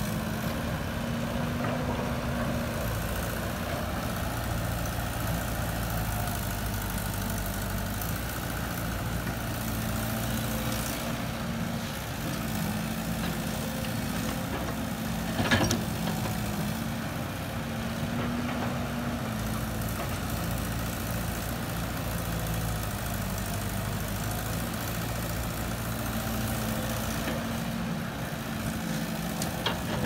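Heavy diesel engines of a Caterpillar excavator and a dump truck running steadily while the excavator loads soil into the truck. The engine note rises and falls slightly a few times, and there is one sharp knock about halfway through.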